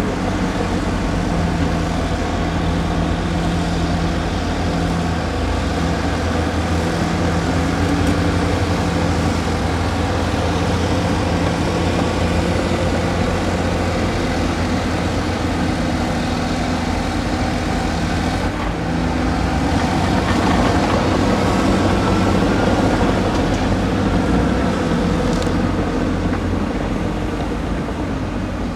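Hydraulic excavators working: a steady diesel engine drone with hydraulic whine, its pitch stepping up and down as the machines dig, swing and dump. It gets somewhat louder about two-thirds of the way through.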